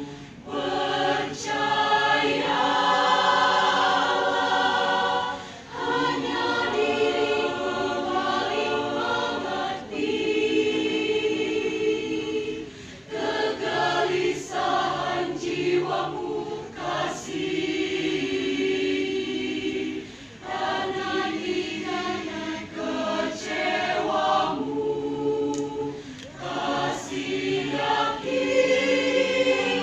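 Mixed choir of women and men singing together, in long phrases with short breaks between them.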